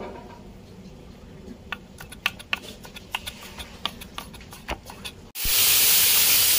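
Knife chopping jackfruit bulbs on a wooden board: irregular sharp taps of the blade against the wood. About five seconds in it cuts abruptly to a louder steady hiss as the chopped pieces go into the pan.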